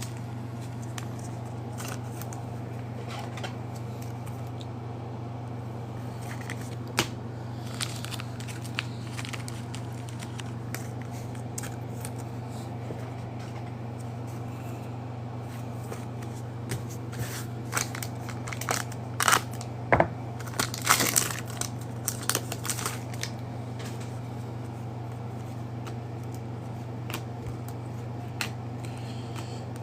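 A foil trading-card pack being torn open and its wrapper crinkled. There are a few light clicks at first, then a cluster of crackling rustles about two-thirds of the way through, all over a steady low hum.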